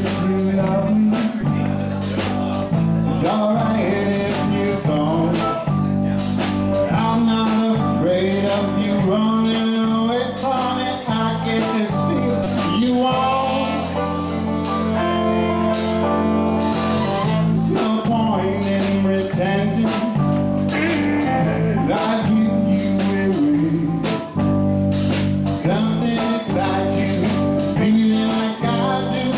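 Live band playing: electric guitar, bass guitar, drum kit and saxophone over a steady beat, with a man singing at times.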